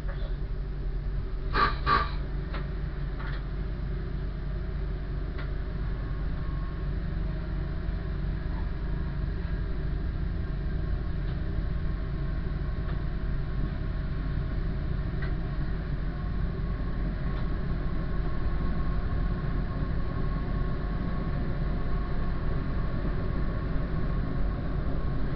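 Diesel train heard from the driver's cab as it pulls away from a station: a steady low engine drone, with a faint whine coming in and the level rising a little as it gathers speed. Two short, sharp sounds are heard close together just under two seconds in.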